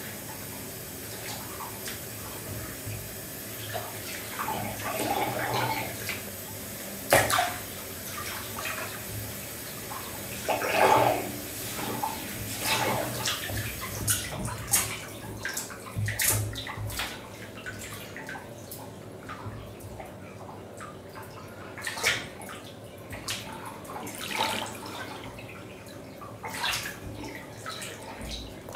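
Tap water pouring into a bathtub while legs in wet shoes splash and slosh in the water. The running water stops about halfway through, leaving only scattered splashes and sloshing.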